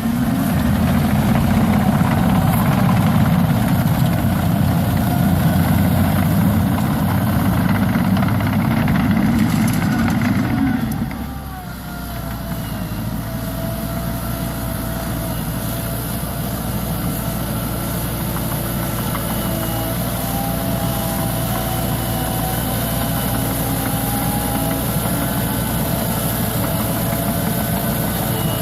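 Liebherr PR 724 crawler bulldozer's diesel engine working hard, loud, for about the first eleven seconds. It then drops back to a steadier, quieter run with a faint wavering whine.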